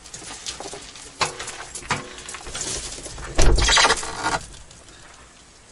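Wooden door of a log dugout being handled and pushed open: a few light knocks and clicks, then a loud scraping creak about three and a half seconds in.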